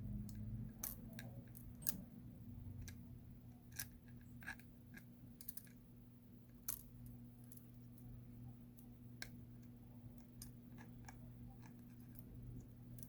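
Faint, irregular small clicks and taps of a tool working against a smartphone's frame and back glass to connect a fingerprint-scanner flex cable, over a steady low hum.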